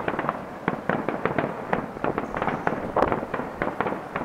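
Fireworks going off: a rapid, irregular run of sharp pops and bangs, with a heavier cluster about three seconds in.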